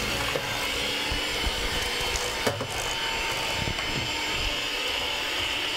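Electric hand mixer running steadily in a stainless steel bowl, beating an egg yolk into creamed butter for sugar-cookie dough, with a couple of knocks.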